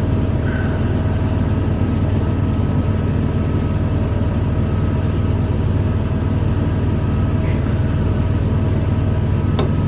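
Steady low hum of shop machinery running, with one sharp metallic tap near the end as a centre punch is struck with a hammer.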